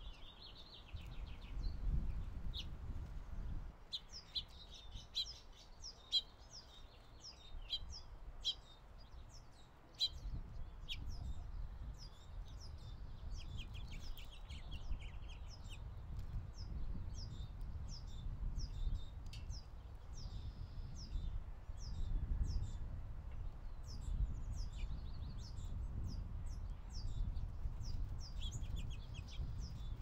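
Small songbirds chirping and twittering: many short, high chirps and quick trills, scattered throughout, over a low rumble.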